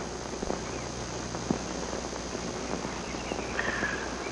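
Faint background ambience: scattered soft knocks and a few high chirps near the end, over a low steady hum.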